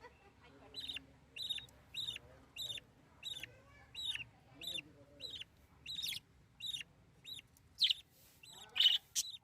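Lovebird calling with a steady run of short, sharp high chirps, a little under two a second, the last few louder.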